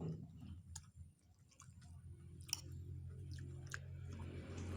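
A person chewing a mouthful of food, with small scattered clicks of eating. A low steady hum comes in and grows louder from about two seconds in.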